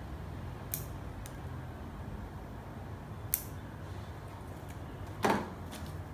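Bonsai scissors snipping twigs and leaves: three short, crisp snips spread over the first few seconds, then a louder knock about five seconds in.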